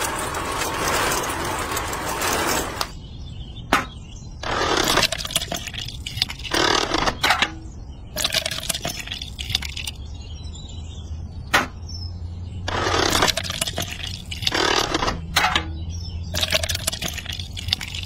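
Wet cement mix being scraped and smoothed by hand with small tools: a run of short, wet scraping and slopping bursts with a few sharp clicks, over a low steady hum.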